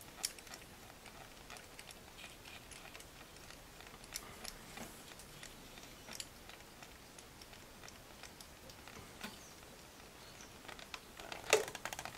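Faint, scattered light clicks and taps of hand tools and metal parts as the new injector retainer and its fastener are fitted by hand, with a louder cluster of clicks near the end.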